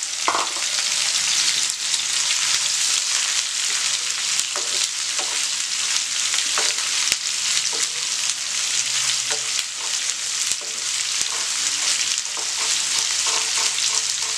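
Sliced onions sizzling in hot oil in a non-stick pan, stirred with a wooden spatula that scrapes and clicks against the pan now and then.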